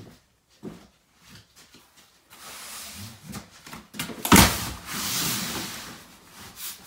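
A large cardboard case of toilet paper set down with a loud thump about four seconds in, then pushed along the boards into place with a scraping rustle for about two seconds. Lighter knocks and shuffles of handling come before it.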